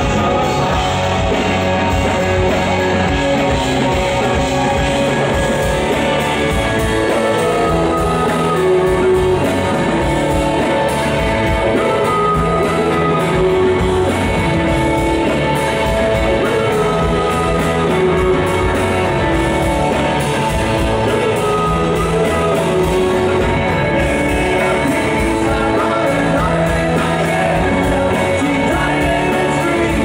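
Live rock band playing a mid-tempo song: electric guitars, bass and drums with a sung lead vocal, loud and steady, heard from among the audience in a concert hall.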